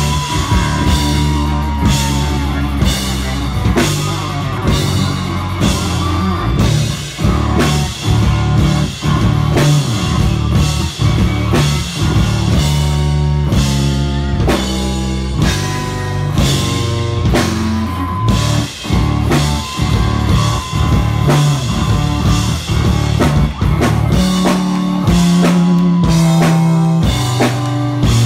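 Live rock band playing: electric bass guitar, strummed acoustic guitars and a drum kit keeping a steady beat.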